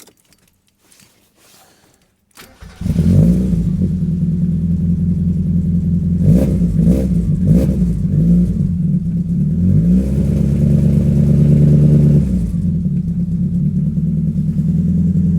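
Mazda MX-5's four-cylinder engine catching about three seconds in, then running with the revs wavering up and down before settling. It is a rough, uneven idle that is still there despite new spark plugs, HT leads, injectors and intake gaskets: the misfire is not cured.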